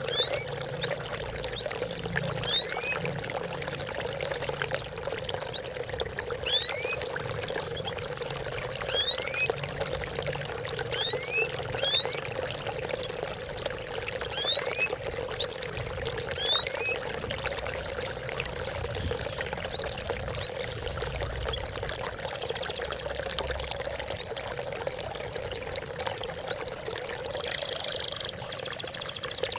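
Water trickling and pouring steadily, with short rising chirps repeating irregularly above it and a couple of brief rapid trills about two-thirds of the way through and near the end.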